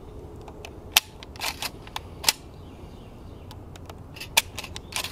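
Several sharp clicks, with fainter ticks between, as 20-gauge slug shells are pushed one by one through the loading port into the tube magazine of a Springfield 67F pump-action shotgun.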